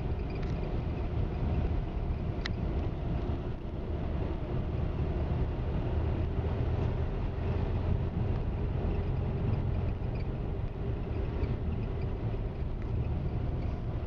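Steady low outdoor rumble, mostly wind buffeting the microphone, with a single sharp click about two and a half seconds in.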